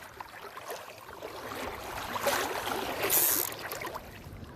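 Water rushing and splashing, swelling to a loud hiss about three seconds in before easing off.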